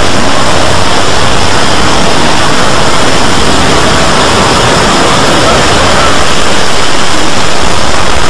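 A loud, unbroken wall of noise-like sound from many video soundtracks layered on top of each other, with voices and music blurred together so that nothing stands out on its own.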